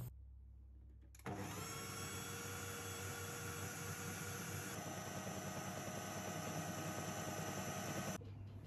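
Kenwood food processor motor switched on about a second in, running steadily with a whine as its blade mixes cake batter; its pitch steps up about halfway through. It cuts off suddenly near the end.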